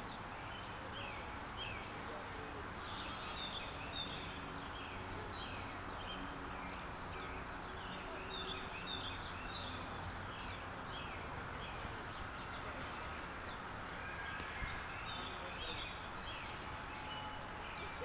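Small birds chirping repeatedly, many short calls a second, over a steady outdoor background hiss.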